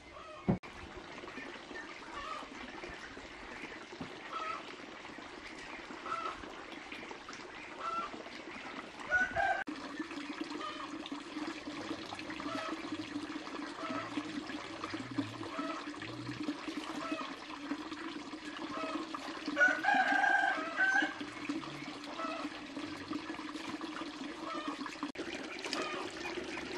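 Chickens calling in short calls about every two seconds, with a longer, louder call about twenty seconds in, typical of a rooster crowing. A steady low hum sets in about ten seconds in.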